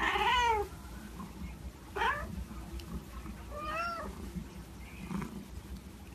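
Domestic cats meowing while begging for food held out on a plate. A loud, falling meow comes at the start, a short meow about two seconds in, another near four seconds and a faint one around five.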